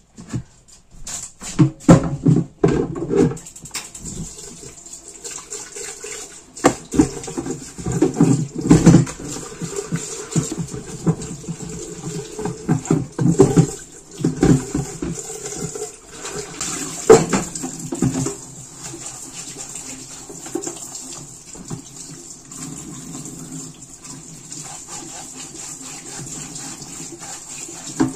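Water running from a kitchen tap into the sink as a plastic cheese mould is rinsed, with repeated knocks and clatter of the mould being handled. The first few seconds hold only knocks and thuds before the water starts.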